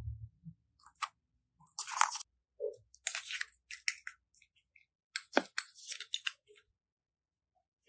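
Slime being squeezed and pressed by hand, giving irregular bursts of crunchy crackling and clicking.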